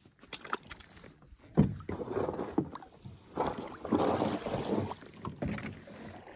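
A canoe is launched off the shore into the water, with knocks on the hull, the loudest about a second and a half in. Then water sloshes and swishes as the hull slides out onto the lake, with a couple more knocks near the end.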